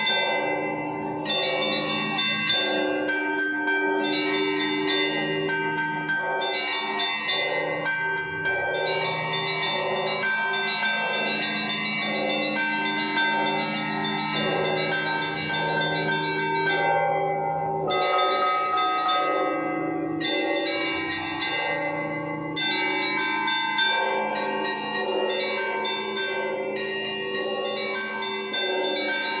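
Orthodox church bells rung in a continuous peal: several bells of different pitch are struck in a quick repeating rhythm, their tones overlapping and ringing on.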